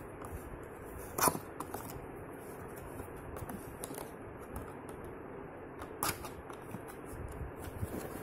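A cardboard box being handled by hand and its tuck flap pried open: scattered light scrapes and taps, with a louder sharp crackle about a second in and another about six seconds in, over a steady background hiss.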